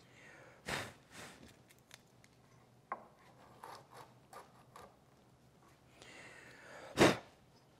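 Small hand router plane shaving wood from the floor of a butt-hinge mortise in pine: a few short scraping cuts and small clicks, then a longer scrape near the end that finishes in a sharp knock, the loudest sound.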